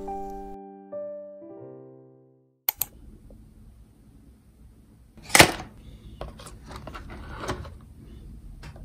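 Piano music ends in its last few notes. After a brief pause come two sharp clicks, then handling of a cardboard watercolor paint-set box on a table: one loud knock about halfway through, followed by several light taps and clicks.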